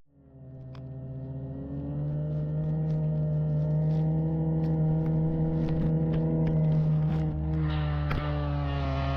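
An engine running at a steady speed, fading in over the first couple of seconds and then holding an even hum.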